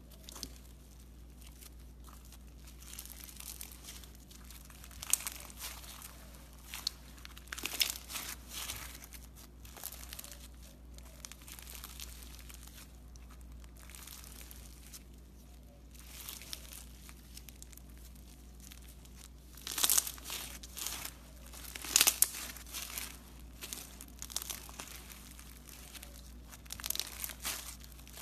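Bumpy slime studded with small embedded bits being squeezed, stretched and kneaded by hand. It gives irregular crackling, squishing and tearing sounds, with louder bursts a few times, strongest about two-thirds of the way in.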